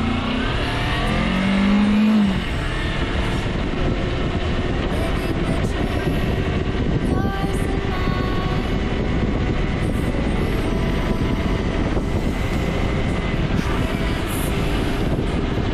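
Kawasaki Versys parallel-twin motorcycle engine rising in pitch as it accelerates over the first two seconds or so. It then runs steadily at speed under a constant rush of wind and road noise from riding on a dirt road.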